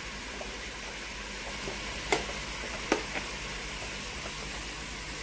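Chopped vegetables frying in safflower oil in a stovetop pot, giving a steady sizzling hiss, with a couple of light clicks about two and three seconds in.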